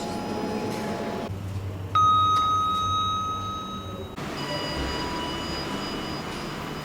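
Kone elevator sounds: lift running noise, then one chime that rings out clearly about two seconds in and fades away over about two seconds, followed by the steady hum of another lift.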